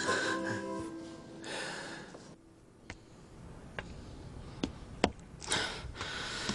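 Background guitar music fading out, then a few sharp light knocks and clicks with soft rustling, from people handling a cardboard box and a suitcase in a tiled hallway.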